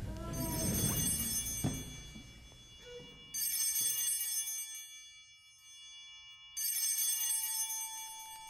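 Bell-like chime sound effects of a logo outro: three shimmering chime hits about three seconds apart, each a cluster of high ringing tones that dies away. A single steady tone comes in near the end.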